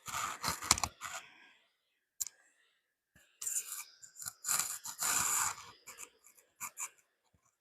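Crinkling, rustling handling noise with sharp clicks: one burst at the start, a longer one in the middle, and a few clicks near the end.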